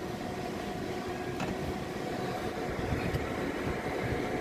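Steady whir of the inverter cabinet's small exhaust fans, running on the inverter's 220 V output, with a faint steady tone under it. A light click comes about one and a half seconds in.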